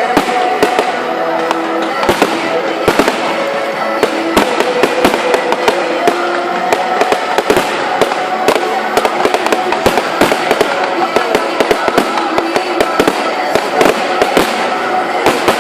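Aerial fireworks display bursting without a break, several sharp bangs a second over a constant crackle.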